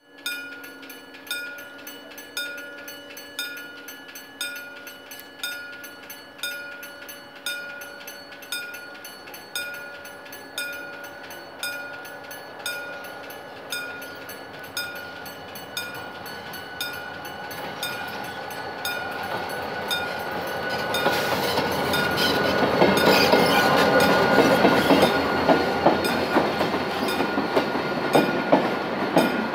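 GM GT22CW-2 diesel locomotive with a passenger train approaching and passing close by. Its engine and wheels grow louder over the second half, with rapid clacking as the cars go past. Before it arrives, a regular ringing ding sounds about once a second.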